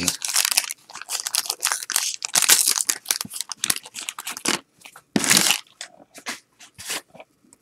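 Wax-paper wrapper of a 1989 Topps football card pack crinkling and tearing as it is opened, with the cardboard cards rustling and flicking in the hands. Rapid scratchy crackles for the first few seconds, a longer rasp about five seconds in, then a few scattered clicks.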